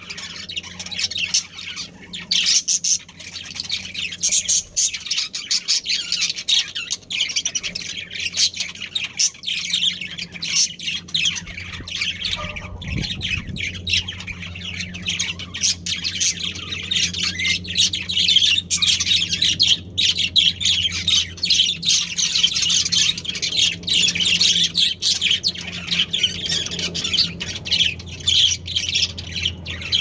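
Budgerigars chattering, with a dense, unbroken stream of quick high-pitched chirps and squawks, over a steady low hum.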